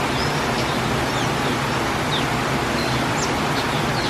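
Steady outdoor noise with small birds chirping faintly several times over it.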